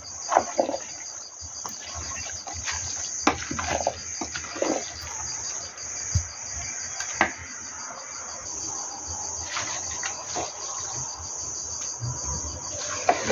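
Crickets chirping steadily in a fast, even trill. Over it come scattered scrapes and knocks of a cooking spoon against a metal pot as a stew of beans and cabbage is stirred.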